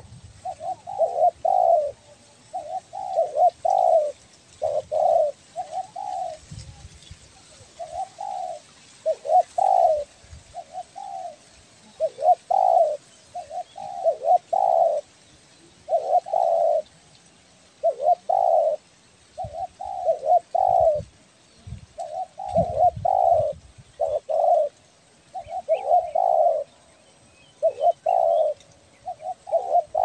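Spotted dove cooing over and over, loud and repetitive: short phrases of two or three low coos, one roughly every one to two seconds.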